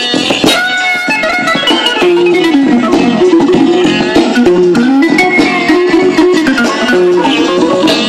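Instrumental soul-jazz vinyl record playing on a Rheem Califone 1470B portable record player through its small tube amplifier, a steady beat under a sustained, wavering melody line.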